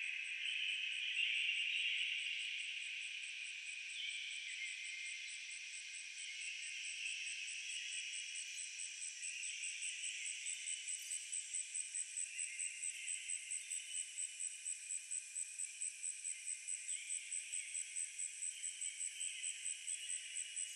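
Insect chorus: a high, steady cricket-like trill over a buzzing hiss of other insects that swells and fades in patches, taking on a regular pulsing beat of about three a second in the second half.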